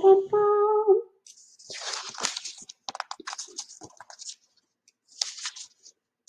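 A woman's short held vocal sound in the first second, then the paper pages of a hardback picture book being handled and turned: irregular crackling and rustling with short pauses, the pages sticking and peeling apart.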